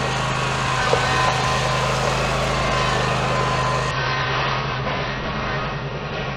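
Scag Tiger Cat zero-turn mower's engine running steadily while its front-mounted blade pushes gravel and soil.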